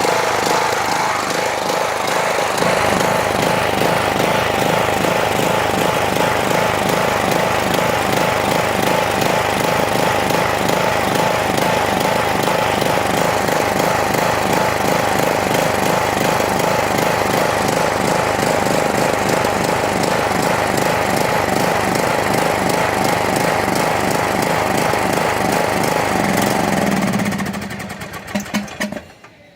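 Troy-Bilt Pony riding mower engine running steadily on its own fuel, then winding down and stopping about 27 seconds in. It is not idling correctly, which the owner thinks might be caused by the large new fuel filter making the fuel line dip.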